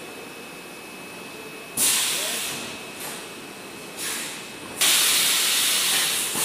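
Luggage vacuum forming machine hissing with air in bursts: a sharp loud blast about two seconds in that tapers off, a short one around four seconds, then a loud steady hiss from about five seconds on.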